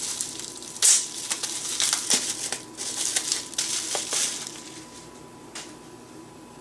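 Plastic bubble wrap crinkling and crackling as it is handled and peeled off a small device, in quick irregular bursts that die away near the end.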